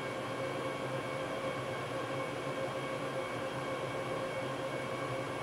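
Steady whir of server cooling fans, with several constant whining tones over the hiss.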